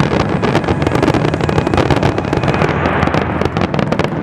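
Aerial fireworks shells bursting in a dense barrage: a rapid, continuous crackle of many cracks and bangs, with one sharp crack at the very end.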